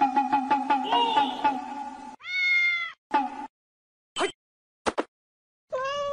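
A cat meowing: a long, arched meow about two seconds in, a shorter one soon after, and another long meow near the end, with brief chirps in between.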